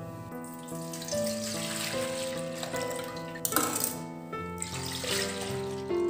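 Background instrumental music with a melody moving from note to note, over which water runs from about a second in until about halfway through, with a short second splash just after.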